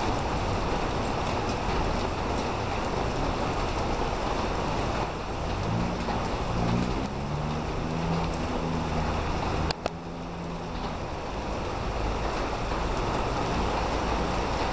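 Heavy rain falling steadily on a flooded street. Through the middle a pickup truck drives past on the wet road with its engine humming, and a single sharp click sounds about two-thirds of the way in.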